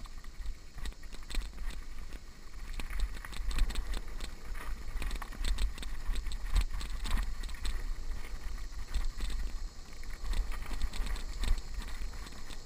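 Mountain bike descending a rough dirt trail: the bike rattles and clatters with many sharp clicks and knocks as the tyres run over ruts and loose dirt, over a constant low rumble.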